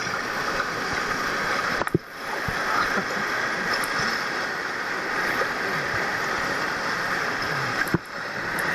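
River water rushing past as kayaks paddle downstream: a steady wash with a few small splashes. It breaks off briefly about two seconds in and again near the end.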